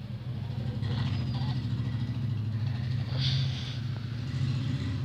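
A steady low engine-like rumble, with two brief soft rustles about a second in and a little after three seconds.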